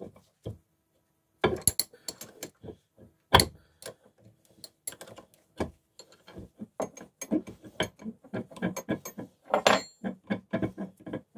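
Steel open-end wrench turning a nut on the fly press ram: a quick, irregular series of metal clicks and clinks as the wrench is worked and refitted on the nut, with a few louder knocks.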